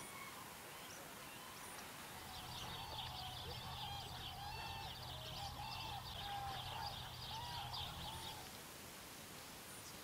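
A flock of birds calling together: repeated short arched calls and dense higher chatter for about six seconds, over a low steady hum, then fading back to faint background.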